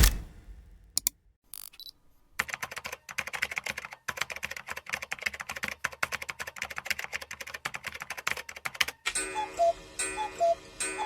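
A run of sound-effect clips: a sharp hit, a couple of isolated clicks, then about six seconds of rapid, irregular clicking like typing on a keyboard. Near the end comes a short repeating pattern of two alternating beeps.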